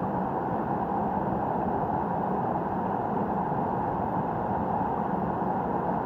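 Mountain stream water rushing over rock slabs and a small cascade, a steady even rush.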